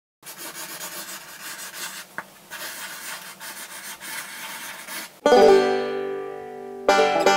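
A felt-tip marker scratching across paper in quick strokes as it writes. About five seconds in, a plucked string chord rings out and fades. Near the end, lively plucked-string music starts.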